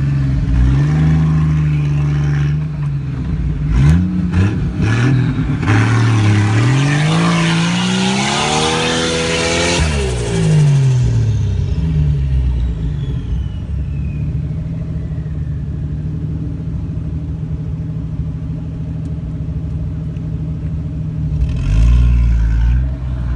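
Off-road 4x4 engine revving hard: its pitch climbs for about four seconds and then drops away, and it settles to a steady run before a shorter rev near the end.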